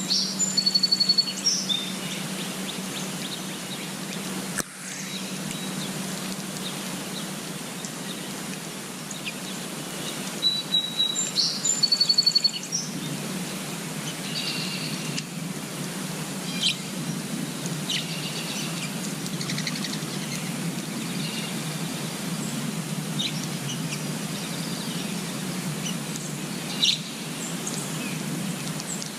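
A songbird singing a short phrase of clear high whistled notes near the start, and the same phrase again about ten seconds in, followed by scattered shorter chirps. Underneath runs a steady background hiss with a low hum.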